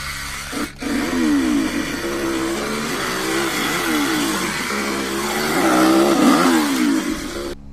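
Chainsaw engine revving, its pitch rising and falling again and again, then cutting off suddenly.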